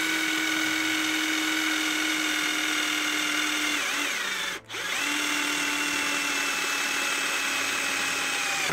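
Counterfeit Bosch GSR 18-2-LI Plus cordless drill-driver running with a 5 mm twist bit boring into a steel square tube, its motor giving a steady whine. A little past halfway the whine sags and stops for about half a second, then starts again and runs on.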